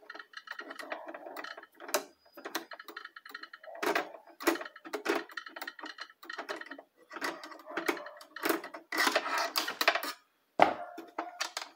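Screwdriver working the needle-plate screws of a Philco PMC16 sewing machine: irregular metallic clicks and scrapes as the screws are turned out, with one sharper knock near the end.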